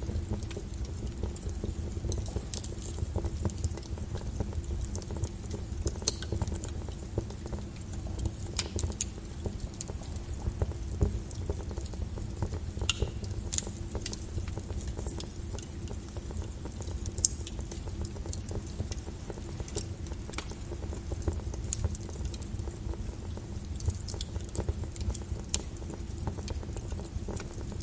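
Steady low brown noise with a fire crackling over it: irregular small snaps and pops, a few sharper than the rest.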